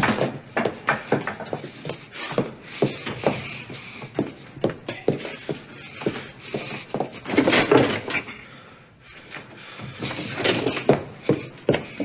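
A run of irregular knocks and clatters of varying loudness, with a quieter stretch near the end.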